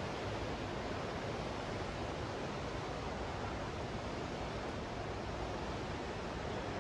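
Steady, even background hiss of a large indoor exhibition hall: ambient room tone with no distinct events.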